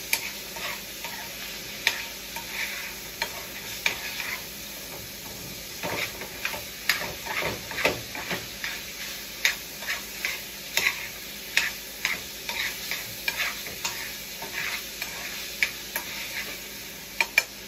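Pork chops frying in a skillet, a steady sizzle as they are browned, with a utensil tapping and scraping against the pan about twice a second as the pieces are stirred and turned.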